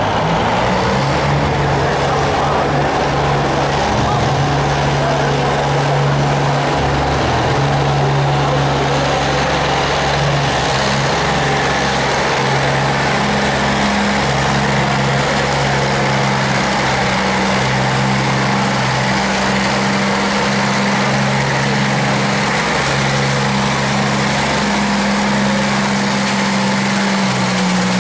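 Ford pulling tractor's diesel engine running flat out under full load as it drags a weight-transfer sled down the track: a loud, steady drone, with a higher note coming in about twelve seconds in.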